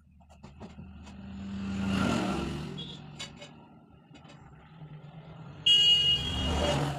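Passing road traffic: a vehicle sound swells to a peak about two seconds in and fades. Near the end a loud high-pitched tone sounds suddenly for about a second.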